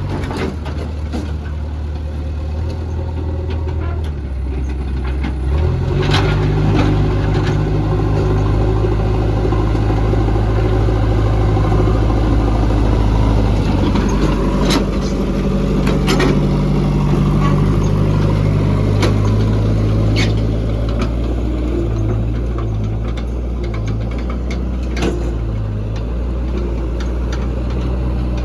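Diesel engine of a JCB 3DX backhoe loader running, revving up about five seconds in and then rising and falling as it works, with a few sharp knocks scattered through.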